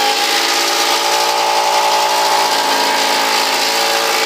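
Impact driver running steadily with a crimping attachment, driving it around the end of a sheet metal pipe to crimp it. The pitch holds level throughout.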